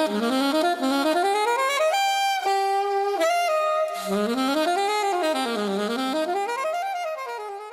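Solo saxophone playing quick runs up and down the scale, with a long held note about two seconds in, fading out near the end.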